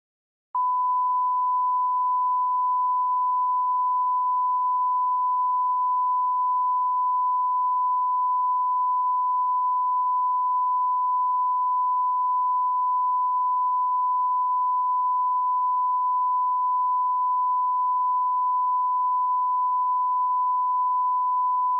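A steady 1 kHz line-up test tone accompanying colour bars, one unchanging pitch at a constant level, used as the audio reference for setting levels at the head of a broadcast tape. It starts about half a second in and cuts off suddenly near the end.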